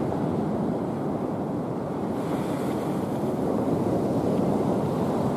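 Steady rushing noise of surf, with wind buffeting the microphone.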